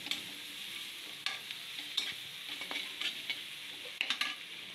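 Onions and cabbage sizzling in oil in a metal kadai while a metal spatula stirs them, scraping and clicking against the pan several times.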